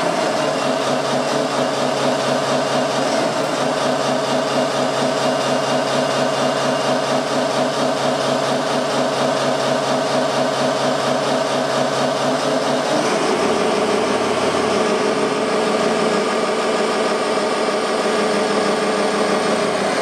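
Steady engine sound from a radio-controlled scale Komatsu wheel loader as it raises a heavy stone block in its bucket, the tone shifting about two-thirds of the way through.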